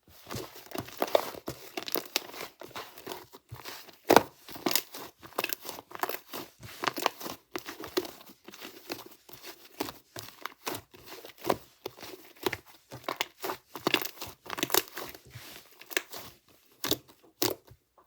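White fluffy clay slime being squished and stretched by hand, giving a dense, irregular run of small crackling pops and clicks, the sharpest about four seconds in.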